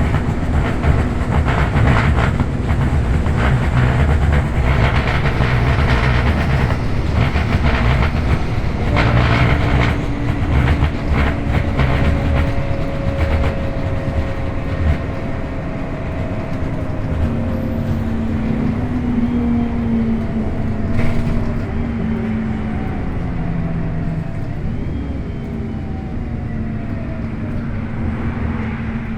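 Scania K230 bus under way, its engine and drivetrain making a strange sound. A loud low rumble with a rattling clatter runs through the first half and eases later, while a whine slides up and down in pitch and steps to new pitches several times.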